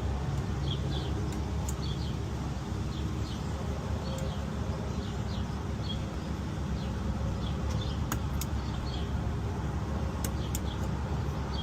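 A handful of sharp metal clicks from lock picks working a door lock cylinder, several of them in the second half, over a steady low background rumble with faint bird chirps.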